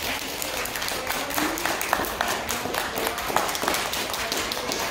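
Crowd applauding: dense, steady clapping from many people in a large room, with a few voices calling out under it.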